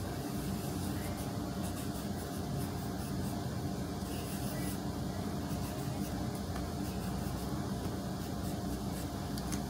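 Steady mechanical room hum, with the faint scratch of a pencil drawing on paper.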